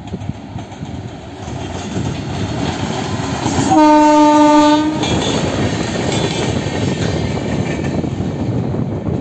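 Indian Railways WAP-7 electric locomotive approaching and running past with a building rumble of wheels on the rails. About four seconds in it sounds one horn blast of just over a second, after which the rumble continues as it passes with its coach.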